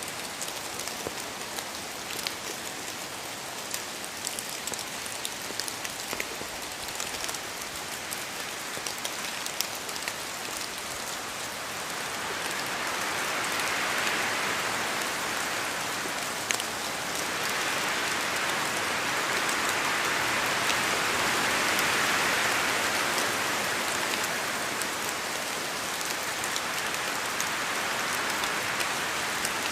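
Steady rain falling on a forest, with separate drops ticking through it. Wind swells up twice over the middle of the stretch, each gust rising and dying away over a few seconds.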